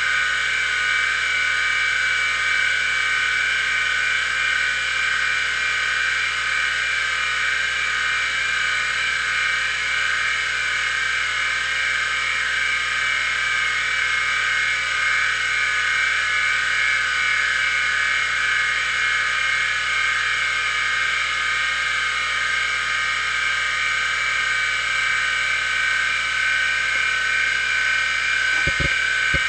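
Maxtor XT-8380S full-height 5.25-inch SCSI hard drive spinning: a steady, high-pitched whine from its spindle motor and platters. Near the end, a few quick low knocks from the head actuator seeking.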